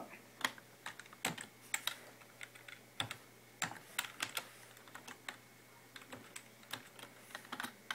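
Computer keyboard keys being typed in uneven single clicks, a password being entered at a PC's power-on password prompt.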